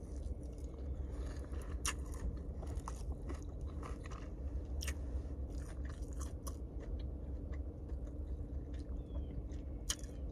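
Someone eating chicken: crunchy bites and chewing in irregular clicks and crackles, over a steady low hum.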